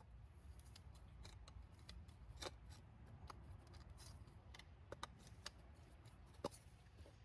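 Faint, scattered clicks of hand pliers with a cut-down nose squeezing dimples into the end of an aluminum intercooler pipe, forming a bead to hold the boot on. There are about half a dozen clicks; the clearest come about two and a half seconds in and near the end.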